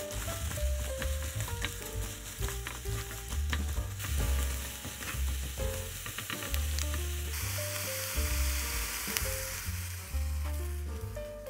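Diced apple sizzling in avocado oil in a ceramic nonstick frying pan, with a silicone spatula scraping and tapping the pan as it stirs. In the last few seconds, beaten egg is poured in and the sizzle gets louder. Light background music with a melody and bass runs underneath.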